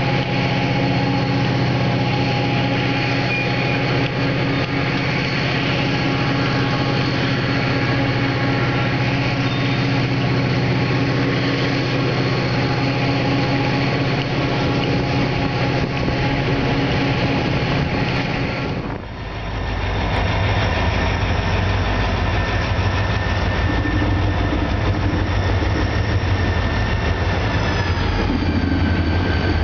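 Freight train in a rail yard: a steady hum of diesel engines with slow-rolling freight cars. About two-thirds of the way in it cuts to a deeper rumble of Wheeling & Lake Erie diesel locomotives moving with tank cars.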